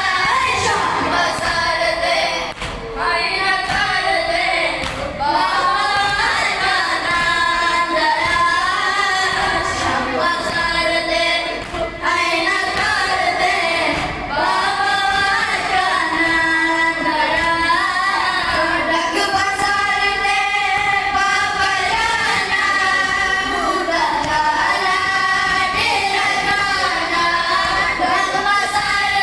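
Several boys chanting a noha, a Shia mourning lament, together through microphones in continuous sung phrases, the melodic recitation that leads sinezani (chest-beating).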